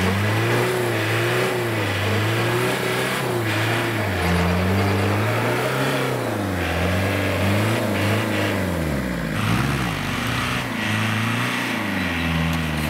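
Mini tractor's engine revving, its speed rising and falling again and again, about once a second.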